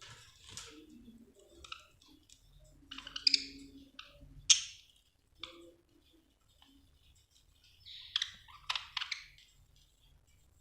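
Budgerigar chirping in short sharp calls, the loudest about three and four and a half seconds in and a quick cluster near the end, with soft chatter between.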